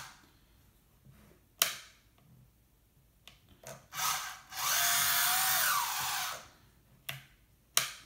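A small electric drive whirring for about two seconds as the RC tracked skid steer loader's track motors and gearboxes turn it in place, the pitch rising and then falling as it speeds up and slows. A few sharp clicks come before and after it.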